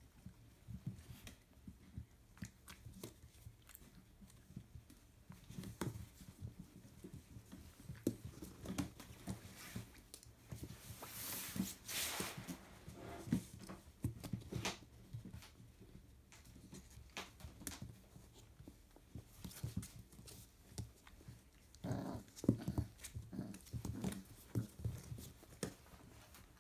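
Four-week-old Labrador Retriever puppies play-fighting and play-biting: irregular scuffling and mouthing sounds with occasional small squeals and yelps, busiest about halfway through and again near the end.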